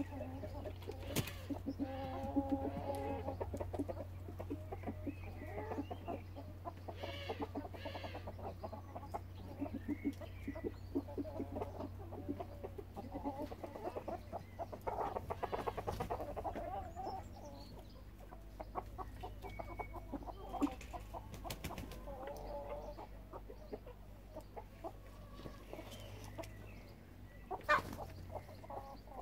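Chickens in a mixed flock clucking and calling on and off, over a low steady hum, with a sharp tap near the end.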